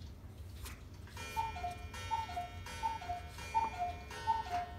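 Cuckoo clock calling five times in quick succession, each call a higher whistle note dropping to a lower one as the bellows blow the two pipes.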